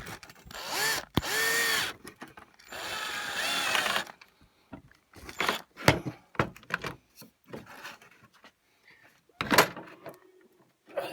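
Power drill running in two short bursts of just over a second each, its motor whine rising and falling in pitch, followed by scattered clicks and knocks of tool handling.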